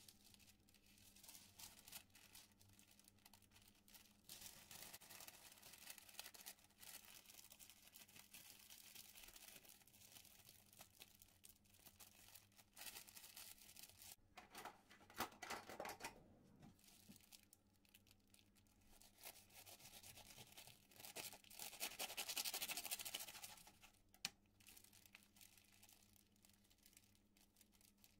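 Faint rustling and crinkling of brown baking paper being folded and wrapped around a sandwich by hand, with two louder stretches of crackling, one about halfway through and a longer one about three quarters of the way in.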